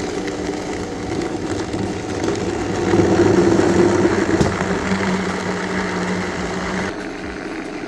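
Countertop blender motor running at speed, chopping collard greens and watercress into a green smoothie. It gets louder about three seconds in, and the pitch settles and changes near the end.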